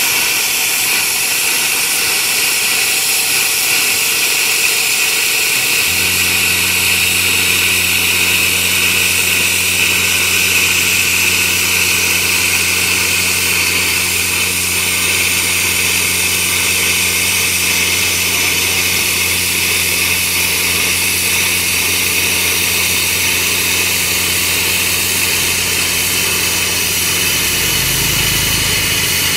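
Tenya CUT 50 air-plasma cutter slicing through 6 mm steel plate in one long unbroken cut, the arc giving a steady loud hiss. About six seconds in, the small air compressor feeding the cutter starts and runs with a steady low hum under the hiss.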